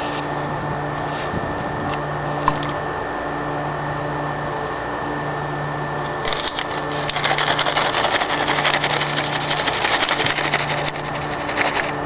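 Steady machinery hum with a low tone pulsing on and off about once a second and a faint high whine. From about six seconds in, a loud crackling rustle with many small clicks lasts several seconds, then drops back near the end.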